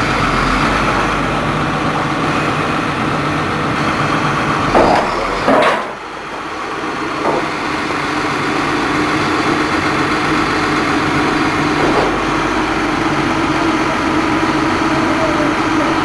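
BUMA DBM rotary drilling rig's engine running steadily, with a few short metallic knocks from the drilling gear, the loudest about five seconds in.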